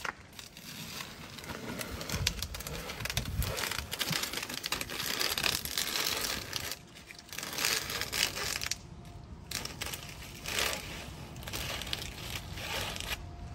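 Green masking tape being peeled off concrete in long strips, crackling and crinkling as it pulls away, with a couple of short pauses.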